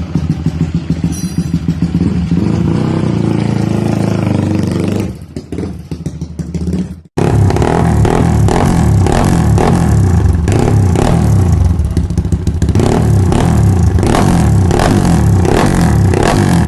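Yamaha 150cc single-cylinder underbone motorcycle engine running, easing off about five seconds in; after a sudden cut at about seven seconds it runs louder with a fast, even pulsing beat.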